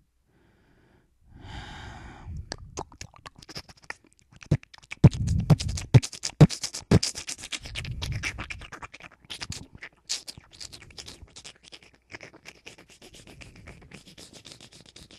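A rapid, irregular run of sharp clicks, taps and low thumps right at a handheld microphone, after a brief hissing at the start, with the thumps heaviest in the middle.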